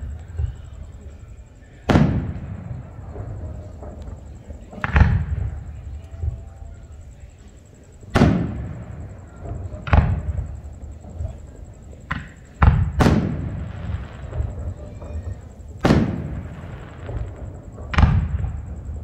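Aerial firework shells bursting: about nine deep booms, each a few seconds apart with a rumbling echo trailing off, and three in quick succession about two-thirds of the way through.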